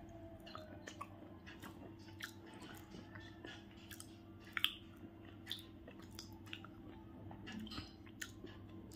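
Faint mouth sounds of a person chewing: soft scattered clicks, one a little louder about four and a half seconds in, over a low steady hum.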